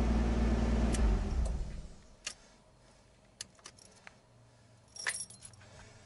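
Nissan RB25DET turbo straight-six running at idle, then switched off about a second and a half in. Keys then jangle and click in the ignition.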